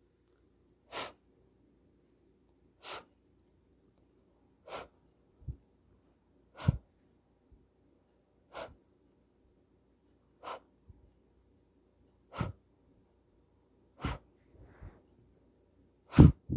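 A voice saying the /f/ sound over and over as a phonics drill: nine short breathy hisses, about two seconds apart.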